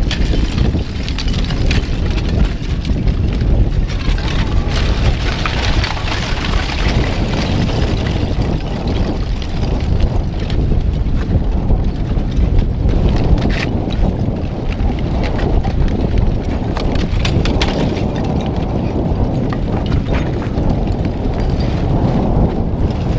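Front of a blocky lava flow, its cooling crust cracking and loose chunks clinking and tumbling in scattered sharp clicks. Under them runs a steady wind rumble on the microphone.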